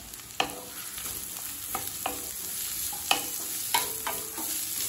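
A wooden spatula scrapes and knocks against a metal kadai as chopped vegetables are stir-fried, with a steady sizzle of hot oil underneath. There are about six irregular knocks.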